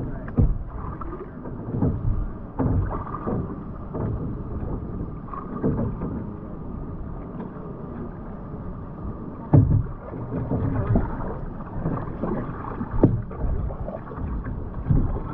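Kayak paddling: irregular paddle splashes and water sloshing around the hull, with a few sharper strikes, the loudest about nine and a half seconds in.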